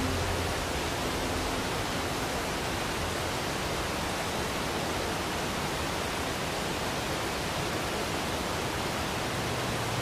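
Waterfall: a steady, even rush of falling water with no changes.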